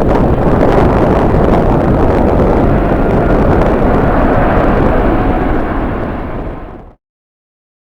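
Jet airliner engine noise mixed with strong wind buffeting the microphone, a loud, steady rushing noise that fades out and ends in silence about seven seconds in.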